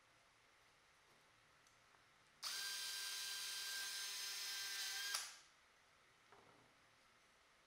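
NRT-Pro 20V cordless drill running at a steady pitch for about three seconds, drilling into the end of a pine slat, then cutting off sharply. A few light handling clicks come before and after it.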